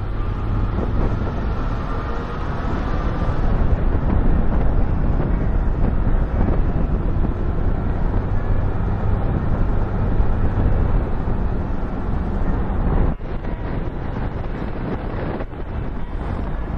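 A car driving along city streets, its road and engine noise mixed with wind buffeting the car-mounted camera's microphone. The heavy low rumble drops off abruptly about thirteen seconds in.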